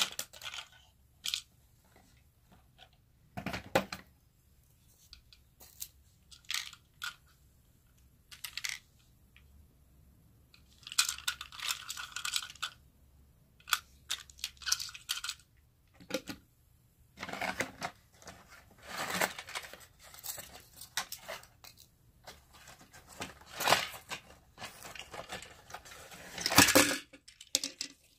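Cardboard toy box with a plastic window and tray being opened and handled: scattered clicks and rustles with a few longer stretches of tearing and crinkling as a plastic toy train is taken out.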